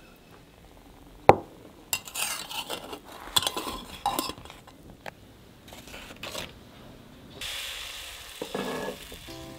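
Utensil scraping and clicking against a small hopper pan while an egg hopper cooks, with one sharp click about a second in. A steady hiss sets in near the end.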